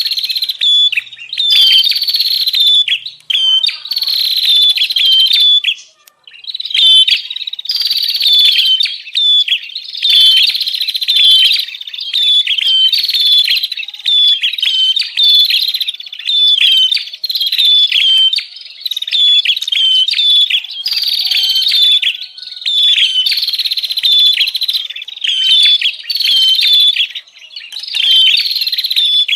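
Prinia (prenjak) calling in loud, fast chattering phrases of about a second each, repeated with only short gaps and one brief break about six seconds in. It is a recorded lure call meant to draw wild prenjak.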